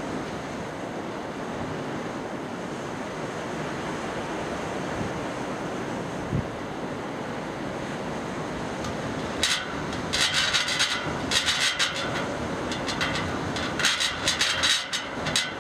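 Steady rush of surf and wind. About two-thirds of the way through, clusters of short, sharp, high-pitched bursts come in over it and repeat until near the end.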